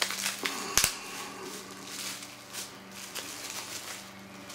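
Plastic bubble wrap rustling and crinkling as it is handled and peeled off small circuit boards, with one sharp click just under a second in.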